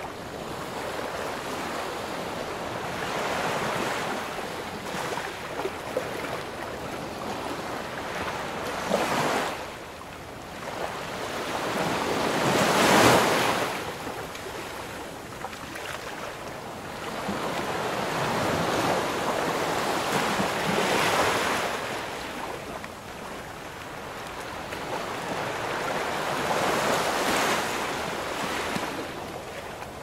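Continuous rush of water that swells and fades in surges every few seconds, with the loudest surge near the middle.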